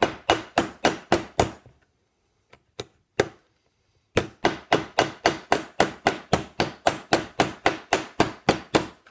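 Ball-peen hammer peening a copper rivet through a steel strip and leather on an anvil horn, tightening the rivet down. Quick, even strikes about four a second, then a pause with a few single taps, then a longer steady run of strikes.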